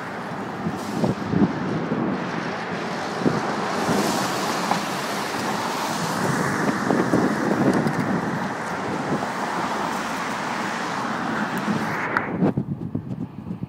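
Street traffic noise, loud and even, with wind buffeting the microphone. It drops away sharply shortly before the end.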